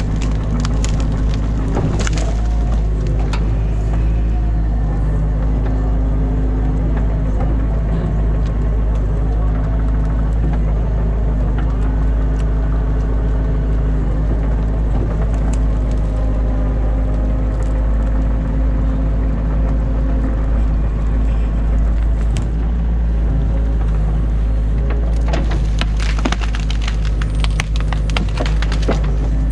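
Excavator's diesel engine running steadily with a low drone, while sticks and branches of a beaver dam crack and snap under the bucket, in a cluster of sharp cracks around the first few seconds and again near the end.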